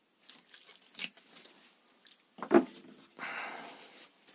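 Hands being cleaned off-camera with technical spirit: a few light clicks, a sharp knock about halfway through, then about a second of rubbing or wiping.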